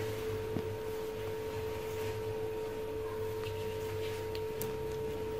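A steady single-pitched electrical-sounding hum, held without change, over a low background rumble, with a few faint light ticks.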